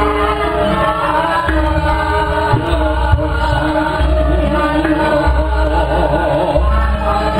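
Javanese gamelan music: bronze kettle gongs and other metallophones ringing in sustained tones over a deep low pulse, with a voice singing in a wavering line over the ensemble.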